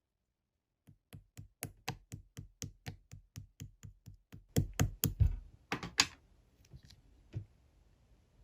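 Slime being squeezed and pressed by hand, making a steady train of small wet clicks, about four a second, that grows into a louder cluster of pops around the middle before a single last click.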